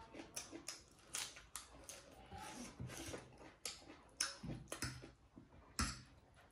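Close-up chewing of crisp lettuce leaves: irregular crunches and wet mouth sounds, with a sharp louder click near the end.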